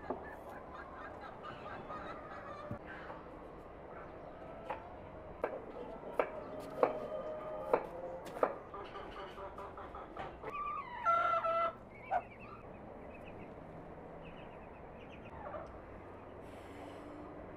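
Domestic poultry calling on and off over a low outdoor background. The loudest call comes about two thirds of the way through and lasts about a second. A few sharp clicks sound in the middle.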